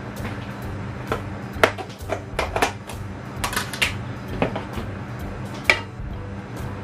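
Scattered light clicks and knocks of a frying pan and cookware being handled on a glass-top hob, the sharpest about a second and a half in and again near the end, over a steady low hum.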